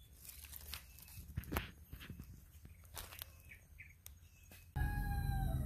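Footsteps crunching through dry leaf litter, with irregular crackles and a few faint bird chirps. About three-quarters of the way in, the sound cuts abruptly to a much louder low rumble, with a held, pitched call that falls away at its end.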